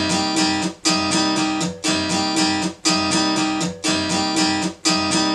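Sampled guitar loop from Reason's Dr. Octo Rex loop player playing back in its original, unreversed form: a strummed chord pattern that repeats about once a second.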